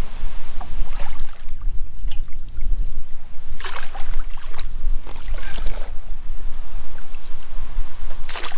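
Wind rumbling on the microphone, with splashes of water as a makeshift rake on a rope is hauled in through the shallows; the loudest splash comes near the end as the rake breaks the surface.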